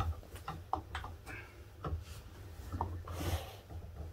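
Scattered light metallic clicks and taps of steel grips working the brake shoes and return springs of a drum brake, with a brief rustle of a cloth sleeve brushing close past about three seconds in.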